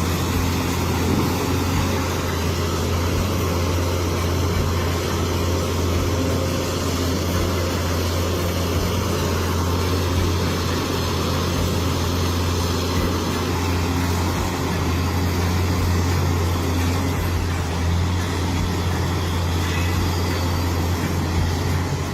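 Heavy machinery's diesel engine running steadily, a constant low drone with no change in pitch.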